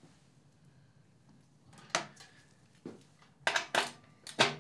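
Steel extractor socket clinking against a ratchet as it is fitted onto the drive: a single clink about two seconds in, another a second later, then a quick run of metal clicks and clinks near the end, the last of them the loudest.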